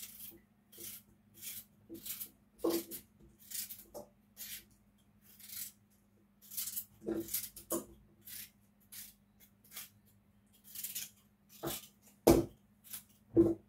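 Knife cutting a carrot held in the hand: short crisp slicing strokes, about two a second, with a few louder knocks as pieces drop into a metal bowl; the loudest is near the end.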